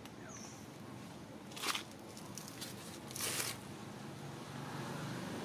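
A cat crunching dry kibble: two short crunches about a second and a half apart.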